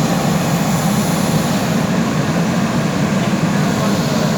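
JCB backhoe loader's diesel engine running steadily at working revs, a continuous low engine sound without breaks.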